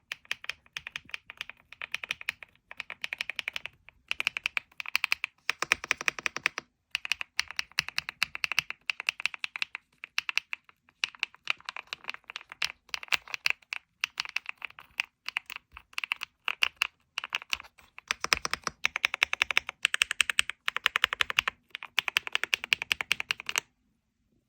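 Rainy 75 mechanical keyboard being typed on quickly, close up: rapid clacking keystrokes in runs with short pauses, stopping near the end.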